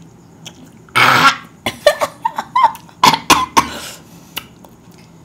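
A woman coughing: one long cough about a second in, then a string of short sharp coughs, brought on by eating a lemon wedge coated in black pepper.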